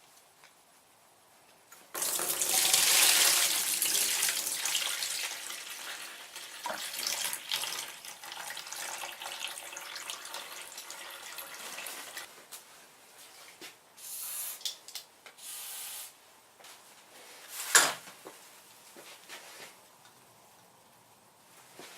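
Engine oil draining out of a Suzuki GSX-R250's crankcase into a catch pan: a strong stream starts suddenly about two seconds in and slowly thins over the next ten seconds. A few short noises follow, and a sharp knock near the end.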